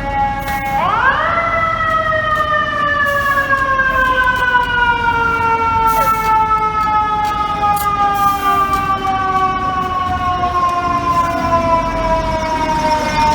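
Fire truck's mechanical siren wailing: it climbs sharply in pitch about a second in, then winds slowly down for the rest of the time, with street traffic rumbling underneath.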